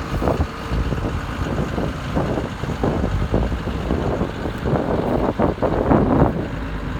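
Kobelco SK250LC track excavator's diesel engine running, with irregular gusts of wind buffeting the microphone.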